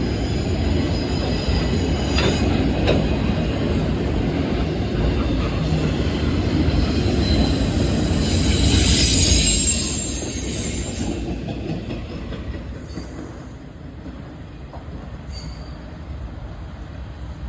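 Freight train cars rolling past at about 45 mph, the wheels clattering with high-pitched squealing that peaks around the middle. The noise drops off about ten seconds in and fades as the train moves away.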